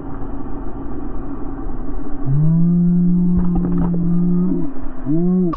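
Off-road vehicle engine running, then revving up about two seconds in and held at a steady high pitch for about two seconds. A short rev that rises and falls comes near the end.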